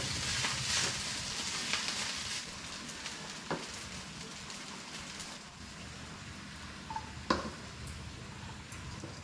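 Fried rice sizzling in a frying pan while a spatula stirs and scrapes it, the rice slightly scorched onto the pan. The scraping strokes come thick over the first couple of seconds, then the sizzle goes on more quietly, with a sharp metallic knock about three and a half seconds in and another near the end.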